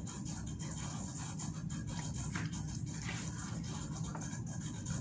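A young child biting and chewing kernels off a corn cob: a steady run of small wet mouth clicks and smacks, over a faint steady hum.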